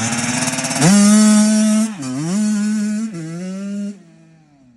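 Dirt bike engine revved hard and accelerating: its pitch leaps up just under a second in, holds, then drops and climbs again twice as it shifts up a gear. The sound cuts off suddenly about a second before the end.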